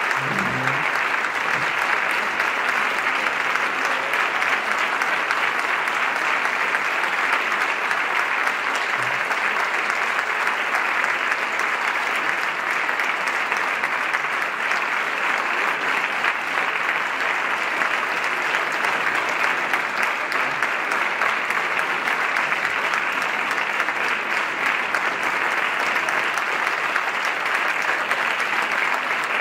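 Audience applause, dense clapping at a steady, even level throughout.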